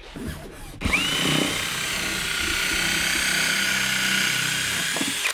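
Cordless drill spinning up about a second in and running steadily while it bores into the dinghy's hull to trim out an axle hole, its whine climbing briefly and then holding. It stops abruptly at the end.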